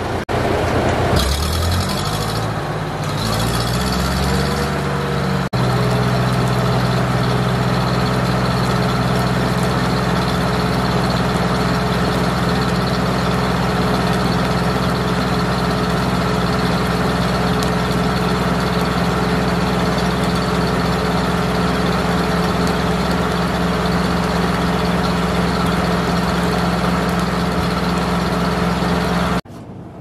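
Tractor engine driving a Foley Belsaw M-14 circle sawmill, its large blade spinning free with no log in the cut. The engine speeds up from idle, rising in pitch a few seconds in, then runs steadily at speed.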